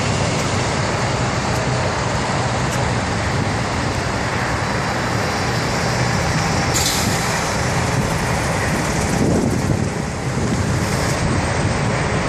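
Heavy water truck's diesel engine running steadily at idle. A loud hiss starts abruptly about seven seconds in and dies away some four seconds later.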